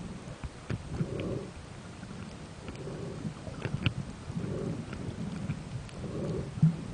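Underwater sound picked up by a camera sealed in an underwater housing: a muffled low rumble of water against the housing that swells about every second and a half, with scattered sharp clicks.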